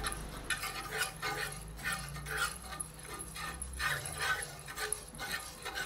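A metal spoon stirring milk and cornstarch in a nonstick frying pan, scraping across the pan bottom in repeated short, uneven strokes.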